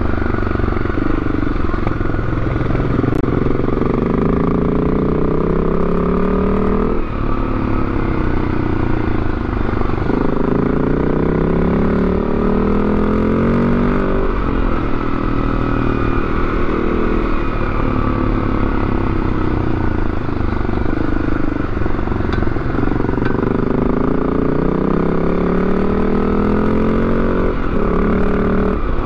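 Yamaha Ténéré 700's parallel-twin engine running under way. Its revs climb in long rising sweeps and drop back sharply several times, over a steady low rumble of riding.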